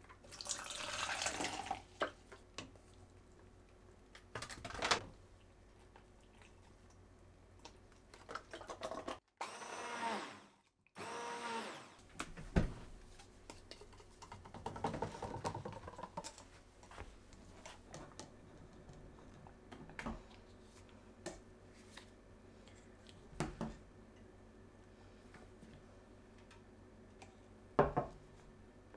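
Kitchen food-preparation sounds: scattered knocks, taps and rustles of utensils and containers, with about three seconds of a small electric motor running near the middle.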